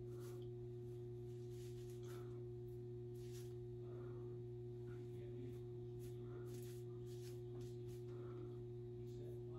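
A steady hum with several fixed tones, and faint brief rustles every second or so as hands work the wig's synthetic fibres.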